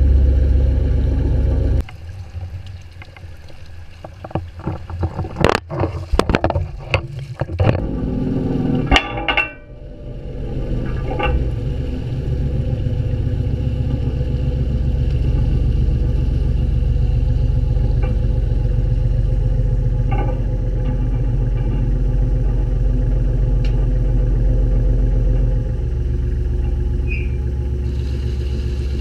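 A truck-mounted boom crane's engine runs with a steady low rumble, quieter for the first several seconds and louder from about ten seconds in. About five to nine seconds in comes a string of sharp metallic clanks and rattles as the aluminium bucket and its hanging scale knock against the hook and frame.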